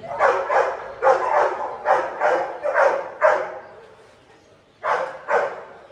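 Dog barking repeatedly, about two barks a second, then a pause of over a second before two more barks near the end.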